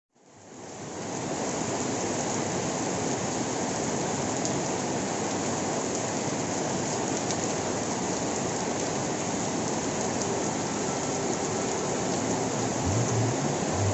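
Steady rainfall, an even patter of drops, fading in from silence over the first second or so. A few low tones come in near the end.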